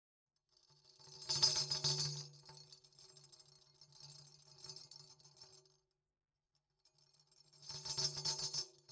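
Metal jingles shaken and rattled in two bursts over a low steady tone. The first comes about a second in and dies away over a few seconds; the second comes near the end.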